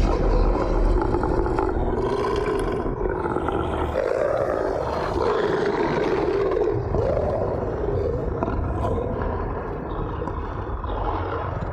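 Film werewolf growling and roaring: one long, wavering snarl that rises and falls in pitch, over a deep rumble.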